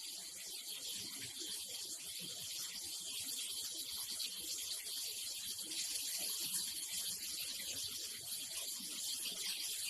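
Plastic flake washing line running: a steady high hiss of rushing water, with no breaks.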